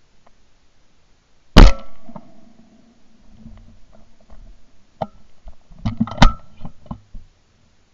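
A single shot from a 20-bore Beretta Silver Pigeon over-and-under shotgun about a second and a half in: a sharp, very loud crack with a short ringing tail. A few seconds later, as the barrels drop, there is a quick cluster of sharp metallic clicks and clacks, typical of the gun being broken open and the spent cartridges ejected.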